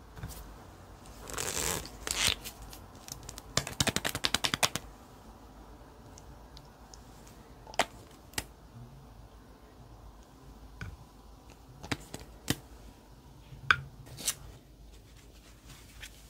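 Small plastic items and containers handled close up: a short swish, a quick rattling run of clicks lasting about a second, then scattered single clicks and taps.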